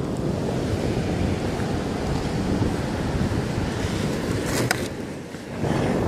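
Wind buffeting the microphone over surf washing on the beach, with a short crackle about four and a half seconds in.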